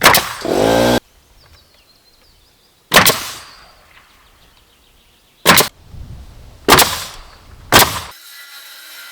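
Nails being driven into wooden wall cladding boards: five sharp, loud shots spaced one to three seconds apart. The first rings on for about a second.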